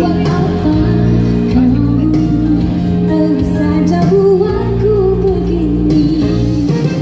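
A female singer singing a Malay pop song live over amplified backing music with a steady bass line.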